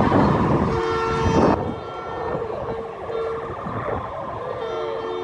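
Emergency vehicle siren sounding, coming through as short steady tones that stop and start, with some wavering pitch; a loud rush of noise covers the first second and a half.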